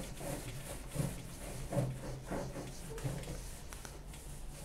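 A wet wipe rubbing back and forth across the top of a microwave oven in quiet strokes.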